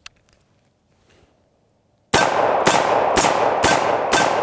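Dan Wesson 715 .357 revolver firing .357 Magnum rounds in rapid succession: five loud shots about half a second apart, starting about two seconds in.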